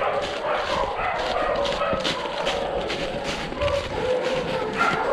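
A pack of bear hounds baying at a bear, many voices overlapping without a break, with footsteps crunching through dry leaves.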